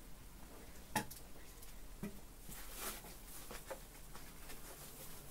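Soft rustling of shredded paper filler in a cardboard box as a hand rummages through it, with a sharp click about a second in.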